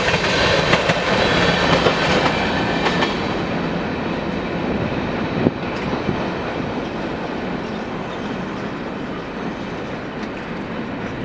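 Freight train's last covered hopper cars rolling away, their steel wheels clattering over the rail joints and fading as the train recedes. A single sharp knock comes about five and a half seconds in.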